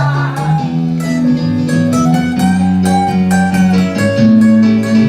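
Instrumental music: a guitar strumming chords that change about every second, with no singing.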